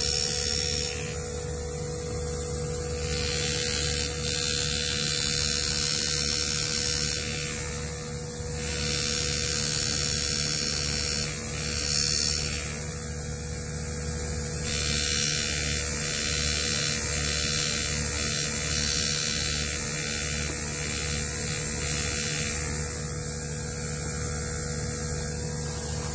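Steady buzzing hum of a pneumatic engraving handpiece driving a graver into a steel gun frame, with a constant mid-pitched tone over hiss.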